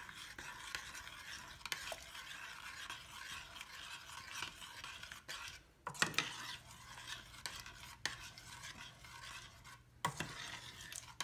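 Metal spoon stirring a thick, chunky potato and asparagus soup in a stainless steel saucepan: a continuous wet scraping and sloshing, with two sharp knocks of the spoon against the pot, about six and ten seconds in.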